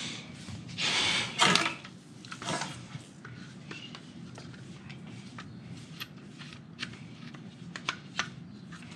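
Hard plastic Rhino-Rack roof-rack foot parts handled and fitted together by hand. A rustle leads into a loud knock about a second and a half in, then a second knock, then a run of small plastic clicks and taps.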